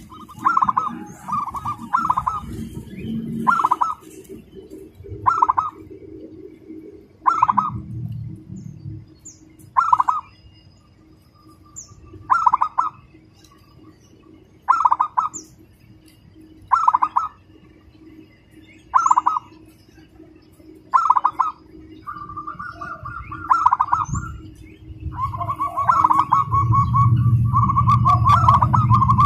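Zebra dove (perkutut) cooing: a short trilled phrase about every two seconds, running into faster, almost unbroken cooing near the end. Small birds chirp faintly in the background.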